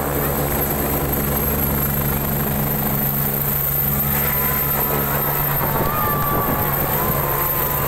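Helicopter lifting off, with a steady turbine whine and rotor hum. The even hum breaks up about five and a half seconds in as the aircraft leaves the ground and climbs.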